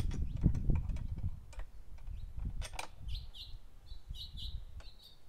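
Clicks and knocks of a lawn mower's folding steel handle being worked into position, loudest in the first second over a low rumble. In the second half a small bird chirps a run of short notes.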